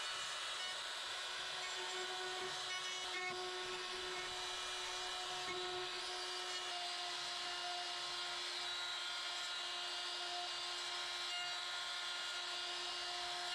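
Electric wood router running steadily with a constant whine, cutting a straight edge along a mahogany drawer to trim away a broken section.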